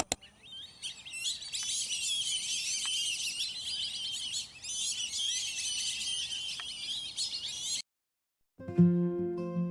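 Many small birds chirping and twittering together in a dense, overlapping chorus, cutting off suddenly near the end.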